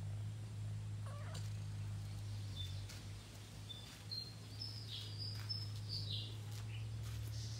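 A domestic cat meows once about a second in, followed by a run of short, high-pitched chirps, over a steady low hum.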